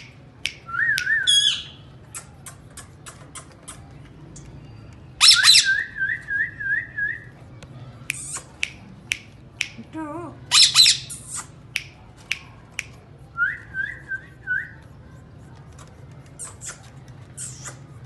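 Indian ringneck parakeets calling: sharp, shrill screeches and short chips, broken by runs of wavering whistled notes, the longest about five notes in a row around six seconds in.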